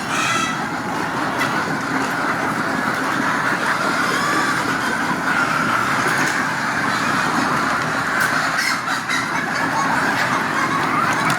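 A large flock of chickens in a poultry house making a steady, dense din of clucking and calling.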